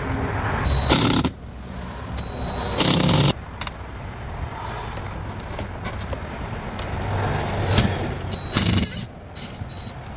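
Cordless drill-driver spinning Torx screws out of a car door panel in short bursts: one about a second in, another about two seconds later, and a third near the end.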